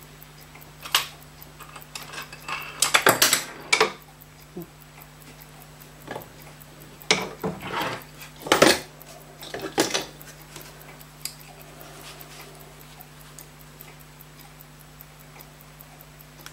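Small metal watchmaker's tools and watch parts being handled on the bench: scattered light clicks, clinks and short scrapes, busiest a few seconds in and again around the middle, over a steady low hum.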